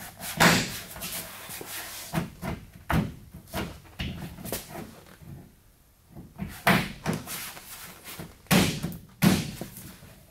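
Hands pressing and slapping an injection-moulded AEV Bison fender flare onto a truck's fender, seating its mounting tape: a series of irregular knocks and thuds, with a quieter stretch about halfway through.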